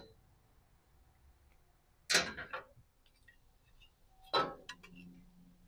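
Light sheet steel being handled: a short scrape about two seconds in, then a scrape and a few small snipping clicks as hand tin snips start to bite into the panel about four seconds in.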